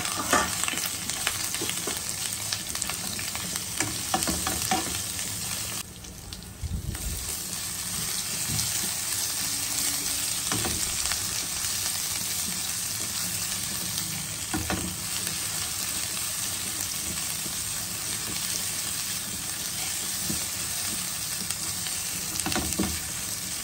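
Ginger, garlic and cumin paste frying in hot oil with curry leaves and dried chillies in a nonstick wok: a steady sizzle, with a silicone spatula stirring and scraping now and then. The sizzle drops away briefly about six seconds in, then carries on.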